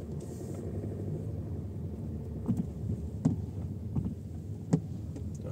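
Ford Kuga cabin noise while driving: a steady low engine and road rumble. In the second half come four sharp clicks, roughly three quarters of a second apart.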